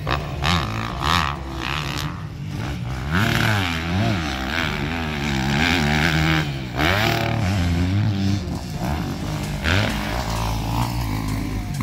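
Motocross dirt bike engines revving hard and dropping back again and again, the pitch rising and falling with each throttle blip through the turns and jumps.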